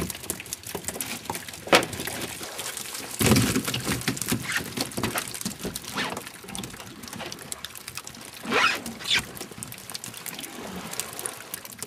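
Sea water splashing and pouring off a long-handled dip net worked from a small boat, with scattered sharp taps and knocks. Two louder splashes come about three seconds in and again near nine seconds.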